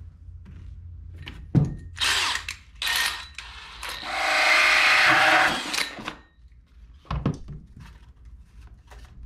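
DeWalt cordless drill spinning a 2 1/8 inch hole saw through cardboard for about two seconds, a steady whir with a rasping cut. A sharp click and two short bursts come before it, and a single knock about a second after it stops.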